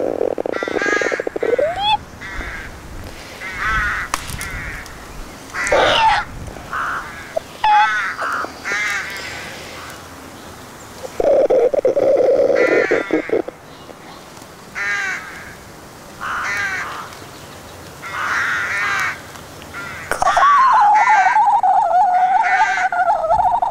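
Crows cawing again and again, short harsh calls a second or two apart. A low buzzing croak sounds about eleven seconds in, and a steady wavering tone comes in near the end.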